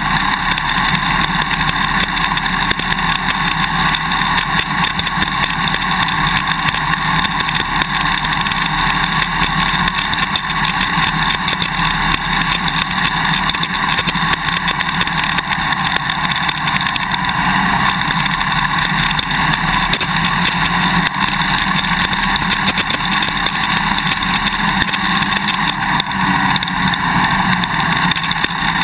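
Suzuki DR-Z400 single-cylinder dirt bike engine running under way, heard from a GoPro Hero 2 bolted to the swing arm, with a constant rattling click from the camera's quick-release buckle vibrating loose in its mounting bracket.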